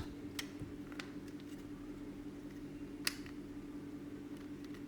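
A few faint clicks of 3D-printed plastic parts being handled and pressed together, the sharpest about three seconds in, over a steady low hum.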